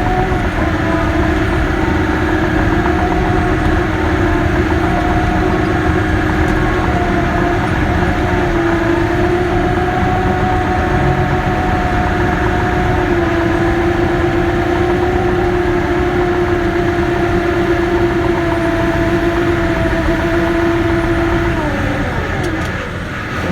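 Caterpillar D6K bulldozer running steadily, its diesel engine and drive giving a loud, even whine. The pitch falls briefly near the end.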